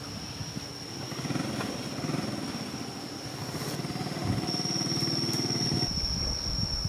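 A small engine running with a fast, even low pulse that changes to a lower rumble near the end, under a thin steady high-pitched tone.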